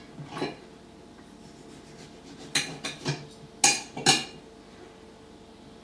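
Plates and a knife clinking as food is handled on them at a kitchen table: a handful of short, light knocks and clinks, the loudest two close together a little past the middle.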